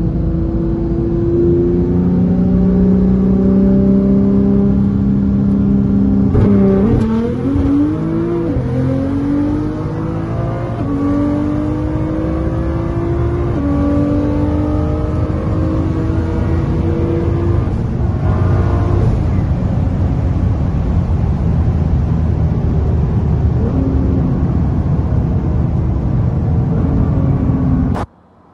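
Car engine pulling hard at high speed, heard from inside the cabin over heavy wind and road noise: its pitch climbs slowly, with a gear change about six and a half seconds in and further shifts later. The sound cuts off suddenly just before the end.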